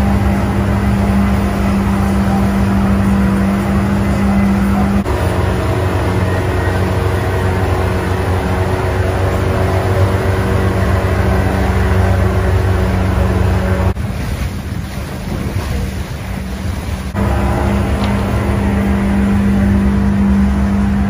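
Yamaha 140 hp outboard motor running steadily with the boat under way, a constant hum over a low rumble. The sound shifts abruptly about five seconds in, and again near fourteen seconds, where it turns quieter and thinner for about three seconds before the full drone returns.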